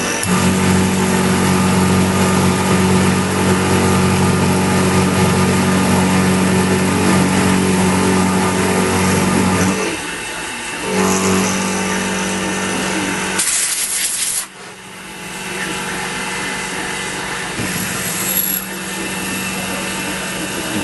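X2 mini mill running at about 1,000 RPM with its end mill cutting into the metal bracket stock: a steady motor hum under grinding cutting noise. The sound drops and changes about ten seconds in, and a short loud hiss comes about thirteen seconds in before the steady running resumes.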